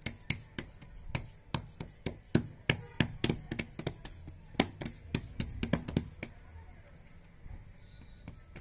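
Hands patting and pressing fresh cow dung into a plate mould: short, irregular wet taps, a few a second, thinning out after about six seconds.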